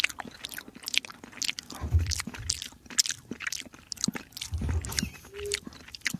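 Kitten chewing and licking soft wet cat food: quick, irregular wet smacks and clicks of its mouth and tongue, several a second, with a few low bumps.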